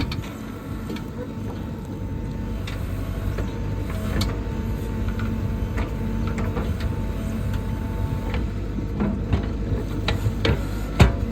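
Backhoe's diesel engine running steadily, with scattered clanks and knocks from the digging and one sharp knock near the end.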